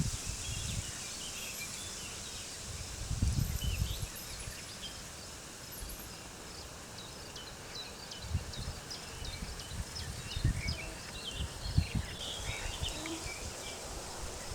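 Birds chirping and twittering in short, scattered calls over a steady hiss. Wind gusts buffet the microphone in low rumbles, about three seconds in and again repeatedly in the second half.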